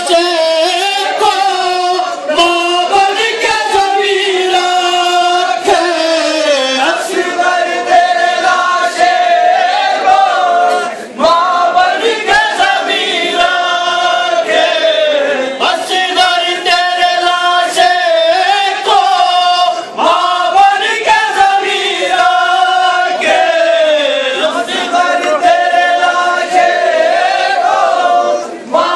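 A crowd of mourners singing a mournful noha together, in long held phrases that each fall away in pitch at the end, about every four to five seconds.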